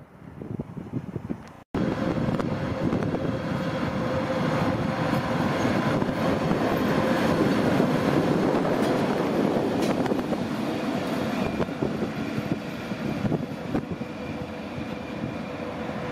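Two coupled Class 151 heavy electric locomotives passing close by, wheels rumbling on the rails over a steady hum. The sound cuts in abruptly just under two seconds in, is loudest midway as they pass, and eases off as they move away.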